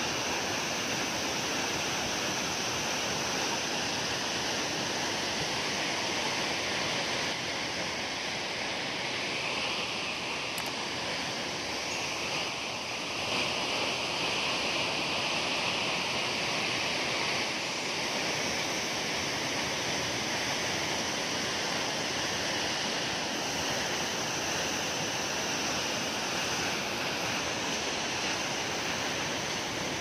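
A tall waterfall rushing steadily as it pours onto boulders at its base.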